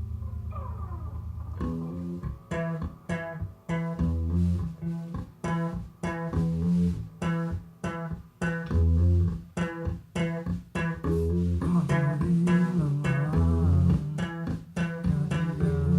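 Live band music with bass guitar and guitar: a held low note and a sliding pitch, then about two seconds in the band comes in with a loud, choppy stop-start rhythm.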